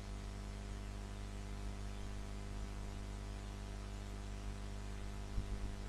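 Steady low electrical hum with a faint hiss, the background noise of the recording once the voice has stopped. There is a faint soft knock about five seconds in.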